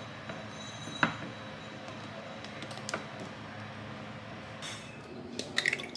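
Light clicks, taps and rustling as a cotton mesh cloth is pulled over a glass jar and tucked down by hand, the sharpest click about a second in and a few quick ones near the end, over a steady low room hum.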